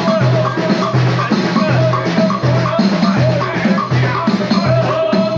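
Live Dakka Marrakchia percussion: a steady beat of deep drum strokes, about two or three a second, under dense rattling percussion.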